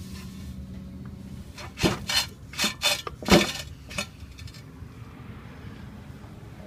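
A quick run of about six sharp knocks and rubbing noises in two seconds, over a steady low hum that fades out just before them.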